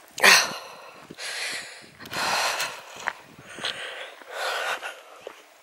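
A walker breathing heavily, about five loud breaths close to the microphone, the first the loudest, with faint footsteps on a dirt path in between.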